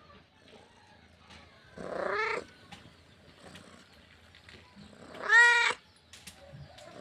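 Domestic cat meowing twice: a softer call about two seconds in and a louder, clearer call about five seconds in.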